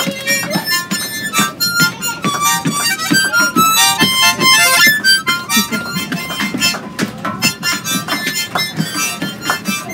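A harmonica played live in quick runs of short notes.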